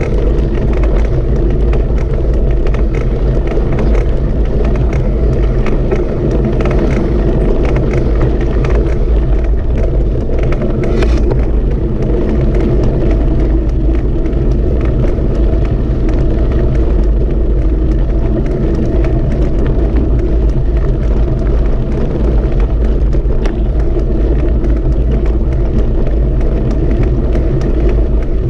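Loud, steady low rumble of a running vehicle, unchanging throughout.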